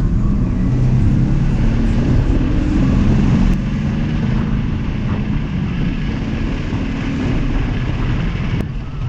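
Mitsubishi 3000GT VR4's twin-turbo 3.0 L V6 (6G72) running as the car drives, an engine drone over road noise. The drone eases about three and a half seconds in.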